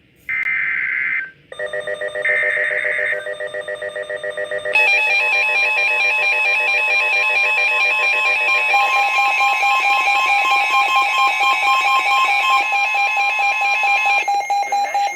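Emergency Alert System relay on NOAA Weather Radio: two short buzzy data bursts of the SAME header sound in the first three seconds. A pulsing electronic alert alarm of several steady tones starts under them about one and a half seconds in and grows louder and fuller about five seconds in. It is the alarm that announces a weather warning.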